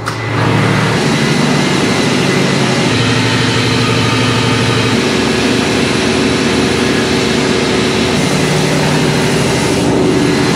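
Stationary gas engine of a biogas combined heat and power unit (BHKW) running steadily, a loud constant drone with a low hum, heard inside its engine room. It comes up to full loudness about half a second in as the engine-room door opens.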